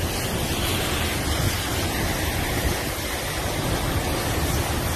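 Strong storm wind of a downburst dust storm blowing hard, a loud steady rush with heavy wind buffeting on the microphone.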